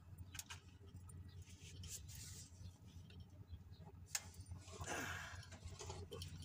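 Faint metallic clicks and a short scrape of a breaker bar and socket extension on the crane engine's cylinder-head bolts, which are being loosened to remove the head. One sharper click comes about four seconds in and the scrape about a second later.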